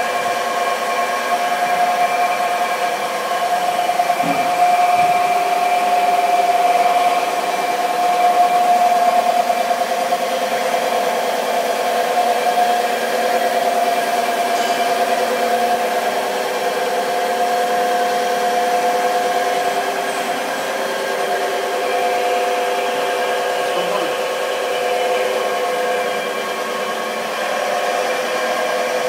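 Metalworking machine tool running in a machine shop: a steady motor whine of several pitches that holds throughout with only slight wavering.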